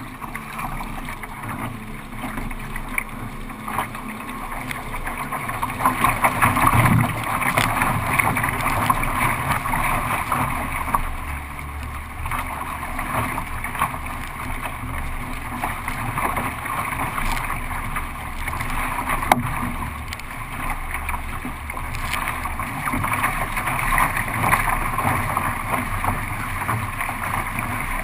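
Wind and water rushing past a paddle craft on open sea, a rough steady rush that swells about six seconds in and again near the end.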